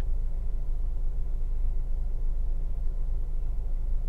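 Steady low rumble in the cabin of a 2023 Honda CR-V, its 1.5-litre turbocharged four-cylinder engine idling while the car is parked.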